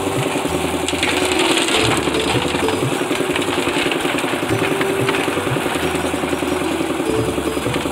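Concrete mixer's engine running steadily with a fast, even beat.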